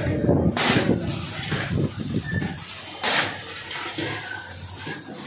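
Packing machine running, with a short hiss that comes back at an even pace about every two and a half seconds over a low mechanical clatter.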